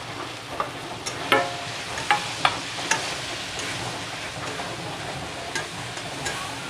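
Fried potato cubes tipped from a steel bowl into a kadai of frying masala, then stirred in with a metal spatula. A steady sizzle runs under sharp clinks and scrapes of metal on the pan, which come thickest in the first three seconds.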